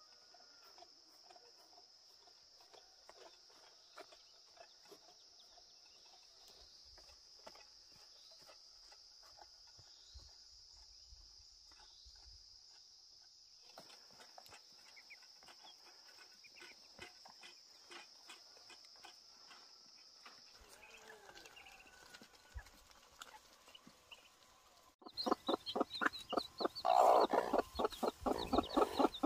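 Chickens clucking, quiet and scattered at first and then loud and rapid from about 25 s in. For most of the first twenty seconds a steady high-pitched insect drone runs underneath.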